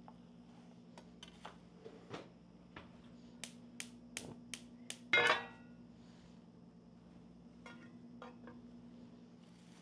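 Kitchen handling sounds: a quick run of about five sharp clicks, roughly three a second, then a louder ringing clink of metal or dishware, and a few softer clicks later, over a steady low hum.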